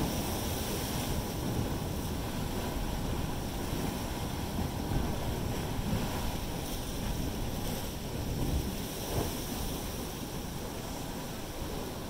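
Ocean surf surging and churning through a narrow rock channel: a continuous rushing wash of foaming water that swells slightly about two-thirds of the way in.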